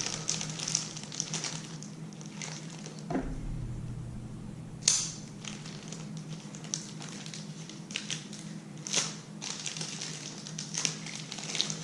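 Packaging of a small tackle product being opened by hand: crinkling and crackling with scattered sharp clicks, the loudest about five seconds in and again about nine seconds in, over a steady low hum.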